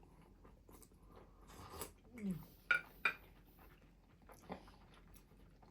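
A few light clinks of cutlery on a plate while eating, two sharp ringing ones close together about three seconds in, amid soft chewing.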